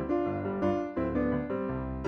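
Background music: a piano-like keyboard playing chords and a melody, notes struck in a steady rhythm.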